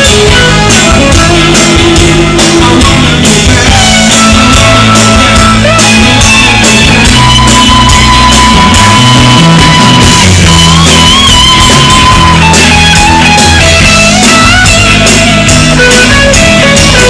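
Loud live rock band: an electric guitar plays long held notes, some of them wavering, over bass and drums with steady cymbals.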